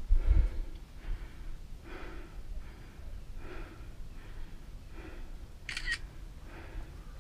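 Rhythmic heavy breathing, a puff slightly faster than once a second, with one sharper hiss near the end.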